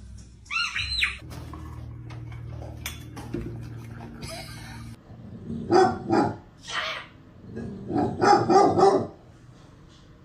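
A parrot gives a short squawk, and a few seconds later a dog barks in a quick run of several barks.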